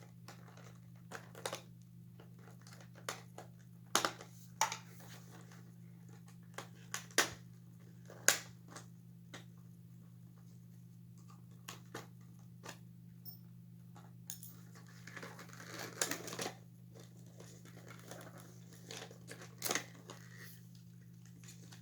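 Hands taking apart the plastic parts of an animated novelty figure: scattered sharp clicks and knocks, with a stretch of rustling about fifteen seconds in, over a steady low hum.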